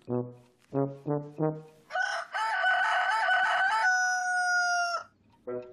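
A few short low brass notes, then a rooster crowing once: a long crow that wavers at first, then holds one high note and stops abruptly.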